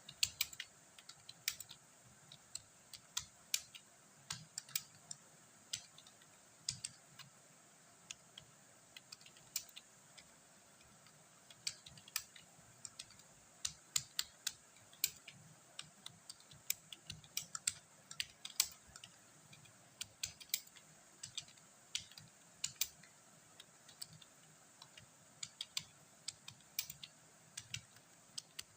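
Typing on a computer keyboard: sharp keystroke clicks at an uneven pace, a few a second, with brief pauses.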